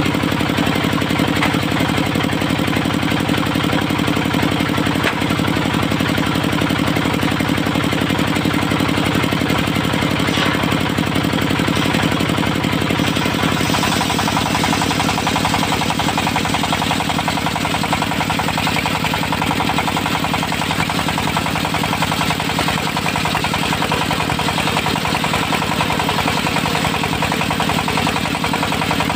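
Diesel engine of a portable circular sawmill running steadily and loudly, its tone shifting slightly about halfway through.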